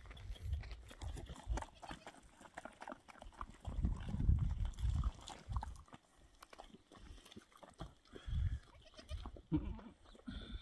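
A mother goat's low calls to her newborn kid as she licks it, a few deep murmuring sounds, the longest about four seconds in, with light scuffs on stony ground.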